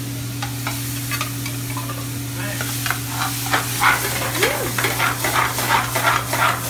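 Spices frying in hot oil in a steel pan on a gas burner, sizzling, with a ladle stirring and scraping the pan in quick repeated strokes that pick up a couple of seconds in. A steady low hum runs underneath.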